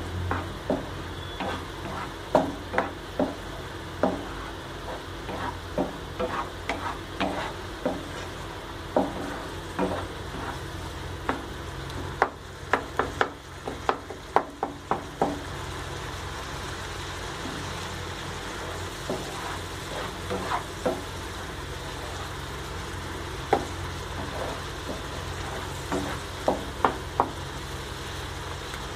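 A spatula stirs a thick mashed yam masala in a nonstick kadai, giving irregular scrapes and taps against the pan over a steady low sizzle. The strokes come thick and fast at first, then grow sparser after about halfway.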